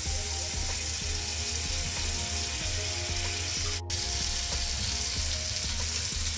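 Butter melting and sizzling in a hot frying pan: a steady hiss with frequent small crackling pops. It cuts out for a moment a little before four seconds in.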